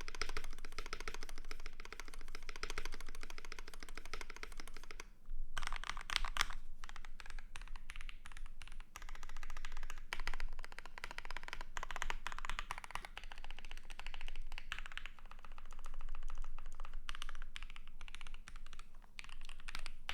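Fast, continuous typing on a custom KBD67 Lite R3 mechanical keyboard with lubed and filmed C3 Equalz Tangerine 67g linear switches, polycarbonate plate and PBT keycaps. The keystrokes pause briefly about five seconds in, then carry on.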